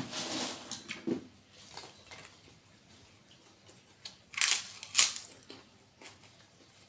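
Close-up eating sounds: food crunched between the teeth, with two loud crunches about four and a half and five seconds in. Fainter crackling and handling noises come near the start as food is picked from the plate.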